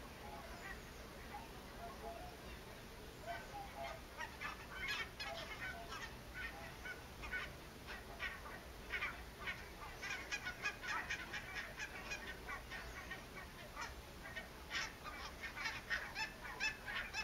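Flock of barnacle geese calling: many short goose calls overlapping, sparse at first and growing thick from about four seconds in.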